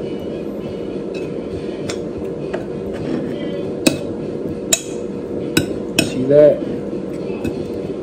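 Kitchen utensils clinking and knocking against dishes and pans, a few sharp separate clinks in the second half, over a steady low hum.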